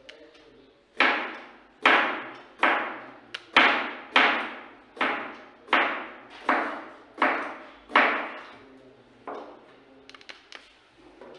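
Chef's knife slicing a white radish into rounds on a plastic cutting board: about ten sharp, evenly paced chops, a little over one a second, each fading quickly, then a few fainter taps near the end.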